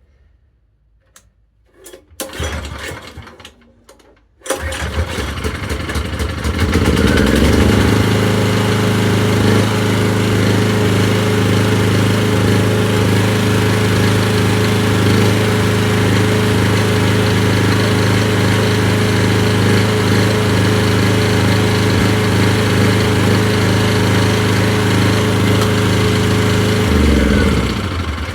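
Briggs & Stratton portable generator's small engine starting about four seconds in, quickly settling into a steady governed run. Near the end it is shut off and winds down.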